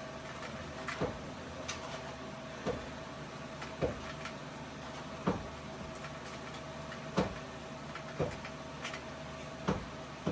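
Short plastic knocks and clacks, about ten of them at irregular intervals of roughly a second, from Nerf blasters being fired and handled, over a steady low hum.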